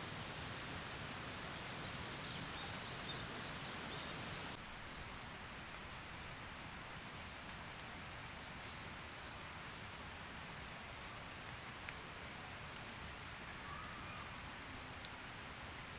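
Rain falling steadily on the forest and wet ground as an even hiss, with a few drops ticking now and then. It gets a little quieter about four and a half seconds in.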